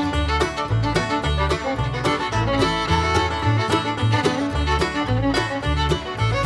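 Background music: an upbeat instrumental with fiddle over plucked strings and a steady bass line, in a bluegrass style.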